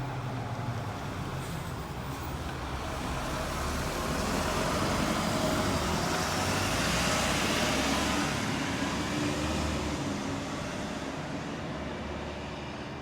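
Hino Blue Ribbon city bus (QPG-KV290Q1) on the move: diesel engine drone with road and tyre noise, swelling to a peak about seven seconds in and then easing off.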